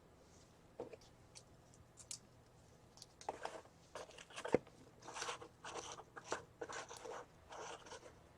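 Handling noise at a workbench: a few light clicks, then from about three seconds in a run of short crinkling, rustling bursts with one sharp click in the middle.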